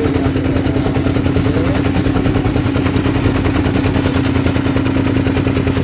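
Wooden fishing boat's inboard engine running steadily under way, a loud constant hum with a fast, even pulse.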